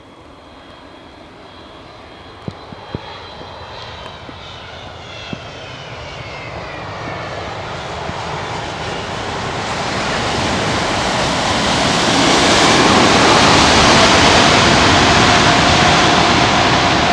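Jet airliner's engines growing steadily louder as it approaches, with a high whine that falls in pitch over the first several seconds. The sound peaks about three-quarters of the way through and stays loud.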